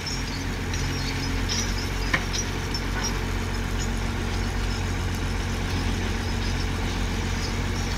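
Diesel engine of a Demag HC 130 crane running steadily with a low drone, with a couple of brief clicks about two and three seconds in.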